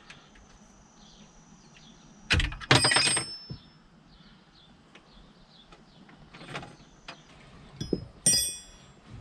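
Metal hand tools clinking against the engine's alternator bracket and bolt while the bottom pivot bolt is being tightened: a quick cluster of metallic clinks about two and a half seconds in and a short ringing clink near the end.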